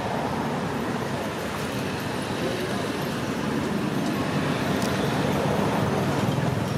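Steady outdoor background noise, an even rumbling hiss with no distinct events, like distant traffic.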